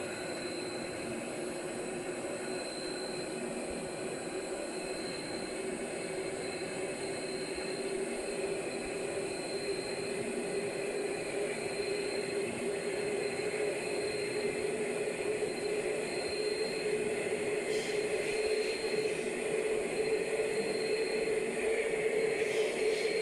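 Sukhoi Superjet 100's turbofan engines running, a steady hum and rush whose pitch rises slowly and which grows gradually louder.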